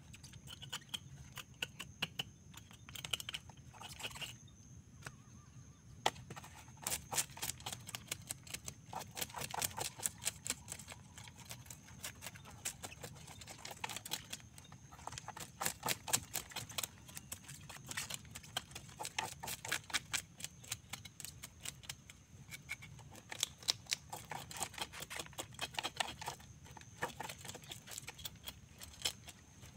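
A knife scraping the scales off a freshly caught fish on a styrofoam board, in runs of quick scratchy strokes with short pauses. The strokes are sparse at first and come thick and fast from about six seconds in.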